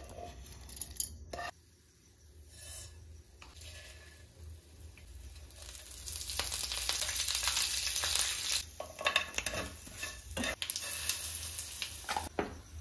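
Hot oil sizzling in a nonstick frying pan as curry leaves and chillies are dropped in for tempering, swelling a few seconds in and easing off before the end. A few sharp clinks come near the start, and scattered utensil taps against the pan follow the sizzle.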